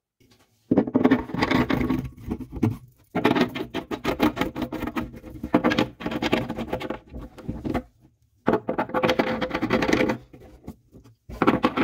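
Quick-connect air couplers being screwed by hand onto black iron pipe fittings: threads rasping and clicking in runs of two to three seconds, with short breaks between as the hands regrip.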